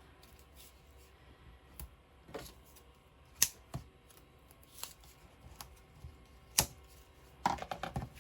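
Scattered light taps, clicks and paper rustles of scrapbook pieces being handled and pressed down on a craft desk, with two sharper clicks about three and a half and six and a half seconds in, and a quick flurry of handling near the end.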